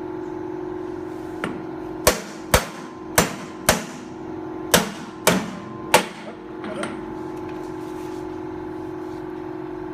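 Hammer blows seating a part during a Hydramatic gearbox rebuild: about seven sharp, ringing strikes in quick pairs and a triple, roughly half a second apart, over a steady hum.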